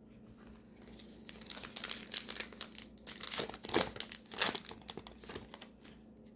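Trading card pack wrapper being torn open and crinkled by hand, a run of crackles lasting a few seconds.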